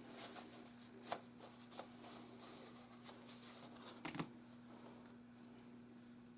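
Faint clicks and taps of small laptop parts being handled, with a few sharp clicks and a quick double click about four seconds in, over a steady faint hum.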